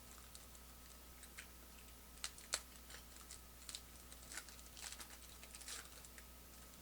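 Trading cards, clear acetate Panini Clear Vision cards, being handled and flipped through: faint scattered clicks and crinkles, with a couple of sharper snaps about two and a half seconds in and a run of rustling toward the end.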